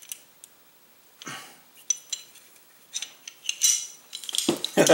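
Metal parts of a Glock clicking and rattling as the recoil spring and guide rod are handled and fitted into the slide: scattered light clinks and short scrapes.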